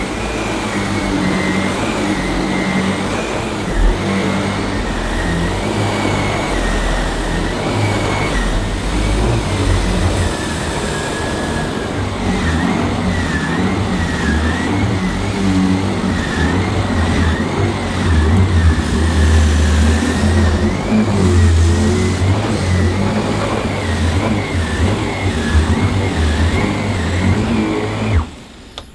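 Mains-powered vacuum cleaner running on carpet, a steady motor noise with a high whine that wavers in pitch; it cuts off about a second before the end.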